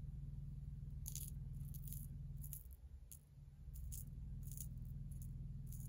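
Small glass seed beads clicking as a needle picks them up one by one: a string of about ten light, sharp ticks, over a steady low hum.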